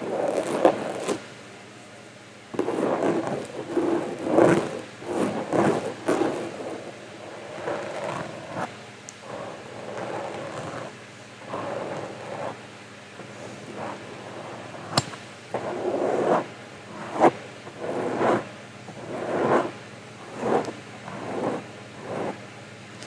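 Close-miked inaudible whispering: breathy, wordless murmurs in irregular bursts, with a few sharp mouth clicks.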